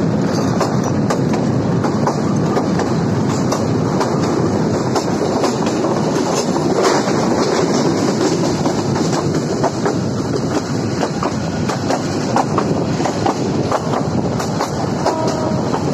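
Passenger train running along the track, heard from an open coach window: a steady rumble of wheels on rails with an irregular clickety-clack of clicks over the rail joints.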